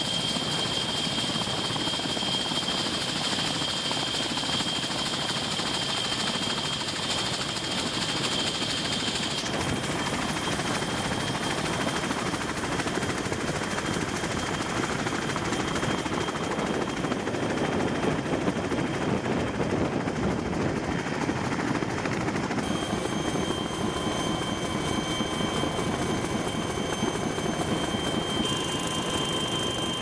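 Black Hawk-type helicopter rotor and turbine noise, loud and steady, with a thin high whine over it. The sound shifts abruptly about nine seconds in and again about two-thirds of the way through.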